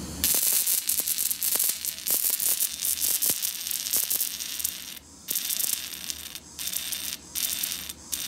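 EDM drill's electrode sparking against a broken drill bit under flowing water: a harsh high crackle full of sharp clicks. It begins just after the start and, from about five seconds in, keeps breaking off in short gaps and starting again.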